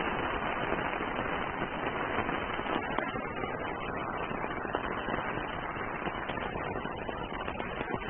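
Rain falling on an umbrella: a steady patter of drops on the canopy, easing slightly after about three seconds.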